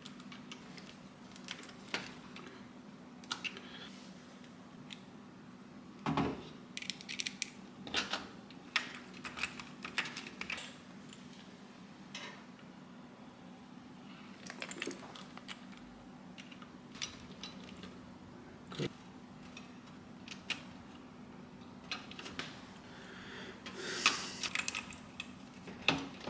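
Scattered small metal clicks, taps and scrapes of screws, washers and a metal GPU sag bracket being handled and fitted inside a PC case, the loudest a brief scrape near the end, over a faint steady hum.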